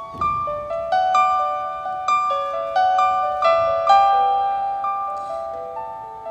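Piano music playing a melody, each note struck sharply and then left to ring and fade.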